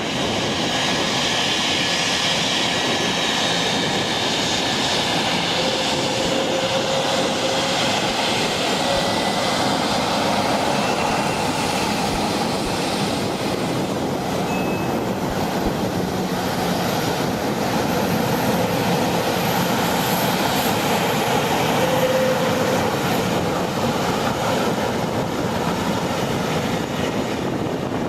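Jet aircraft engines running with a steady rush of noise and faint whining tones over it.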